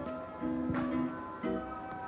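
Background music: a gentle instrumental of plucked chords, each held for about half a second to a second.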